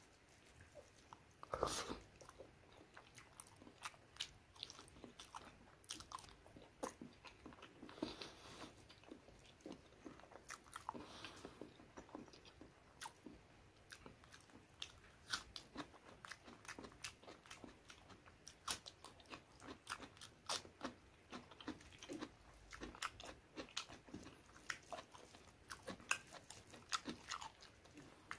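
Close-miked eating: a person chewing and biting mouthfuls of rice, chicken gizzard and liver curry and raw salad, with many irregular wet mouth clicks and crunches. The loudest crunch comes just under two seconds in.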